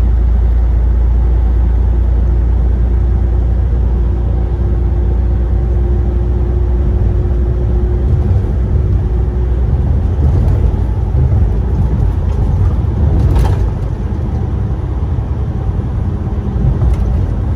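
Semi-truck driving at road speed, heard from inside the cab: a steady low engine and road drone, with a brief sharp click about 13 seconds in.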